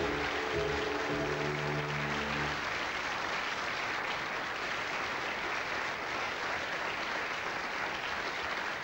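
Studio audience applauding steadily, with a short musical sting over it for the first two and a half seconds or so.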